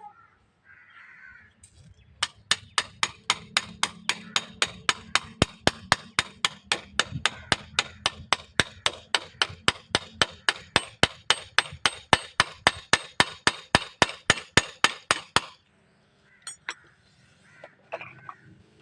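A hammer striking metal in a rapid, even run, about four blows a second for some thirteen seconds, then stopping suddenly.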